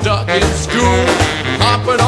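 Rock and roll band playing an instrumental break between verses: a steady bass pulse under a swinging melodic lead line, with no singing.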